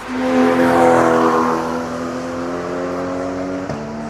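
A GT race car going past close at speed, its engine note loud and high-revving, falling slightly in pitch as it passes and loudest about a second in. Near the end the engine note breaks off for an instant and then carries on.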